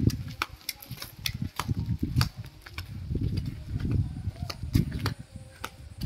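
Footsteps on a paved village road, sharp slaps or clicks about twice a second at walking pace, over bursts of low rumbling noise on the handheld microphone.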